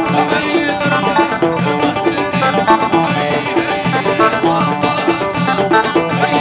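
Live Amazigh tagroupit band music: plucked banjo and guitar over hand drums, with a quick, steady beat.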